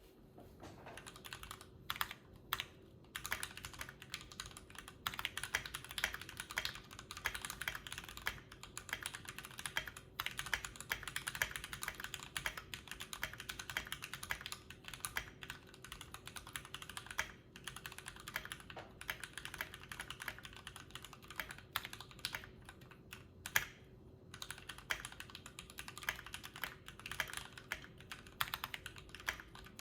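Typing on a Keychron Q3 mechanical keyboard with tactile brown switches and OSA-profile keycaps: a fast, continuous run of keystrokes, broken by a few short pauses near the start and about two-thirds of the way through.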